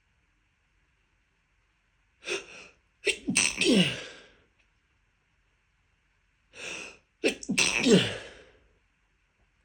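A person sneezing twice in a row, part of an allergic sneezing fit from pollen (hay fever). Each sneeze starts with a short sharp in-breath, then a loud explosive sneeze whose voice slides down in pitch as it fades.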